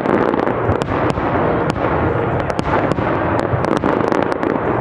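Fireworks display: many sharp bangs and pops in quick succession over a dense, continuous crackling noise.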